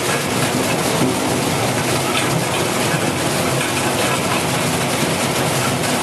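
QX-608 brush-roller taro peeling and washing machine running: taro tumbling against its six rotating brush rollers with water, a steady churning noise with many small knocks, partway through a peeling cycle.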